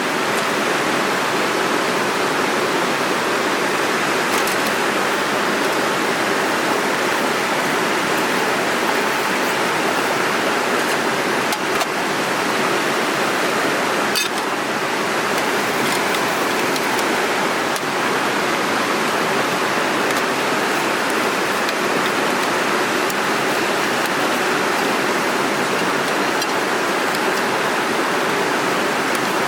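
Mountain stream rushing steadily over rocks in a gorge, a loud even wash of water. A single faint click about halfway through.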